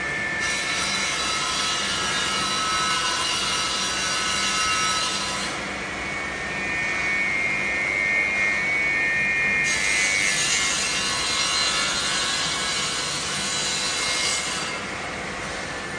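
AccTek AKM2040D CNC router with a circular saw attachment cutting a wooden panel. It makes two cutting passes, about half a second to five and a half seconds in and again from about ten to fifteen seconds in. Between them a high steady whine comes from the machine, over a low hum.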